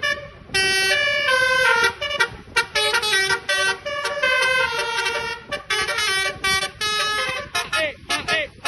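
Basuri telolet horn, a multi-tone musical air horn on a bus, playing a quick tune of stepped notes in short blasts, with sliding, wavering notes near the end.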